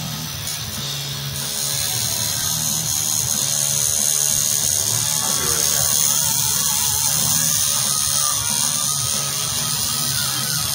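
Tattoo machine buzzing steadily as it inks skin, growing louder about a second and a half in.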